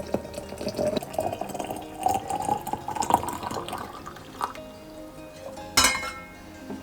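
Liquid being poured into a container, the pitch of the pour rising as the vessel fills, followed by a single sharp clack a little before the end.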